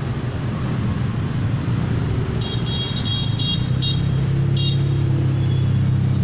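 Steady mechanical hum of a motor, growing louder about halfway through, with a few short high-pitched beeps in the middle.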